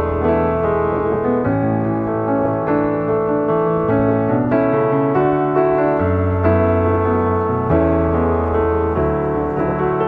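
Background piano music: slow chords over held bass notes, changing every second or two at an even level.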